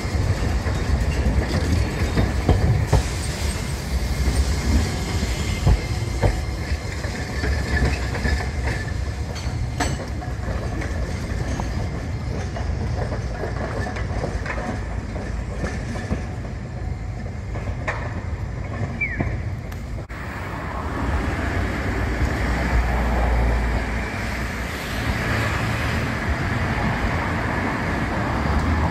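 Kagoshima city trams on street track: wheels clacking over rail joints and the junction, with a low rumble and brief high wheel squeal, a short rising squeal about two-thirds of the way in. Near the end a second tram runs close by.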